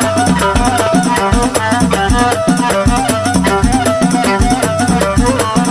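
Moroccan chaabi dance music, instrumental at this point, with a fast, steady percussion beat under an ornamented melody line.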